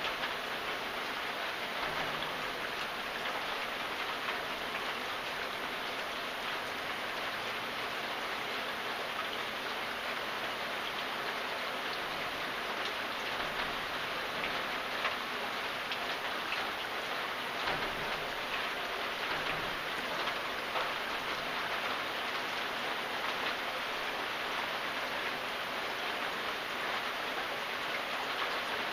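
Steady rain falling, a constant hiss with fine patter of drops on a surface.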